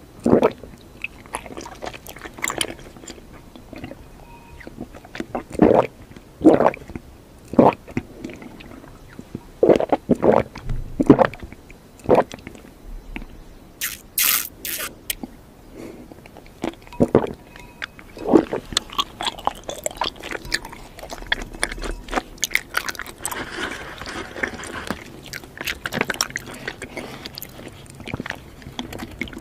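Close-miked eating sounds of bubble tea: the milk tea is sucked through a wide straw and the chewy tapioca pearls are chewed, heard as short wet slurps and squishy chewing at irregular intervals, with a denser run of them in the second half.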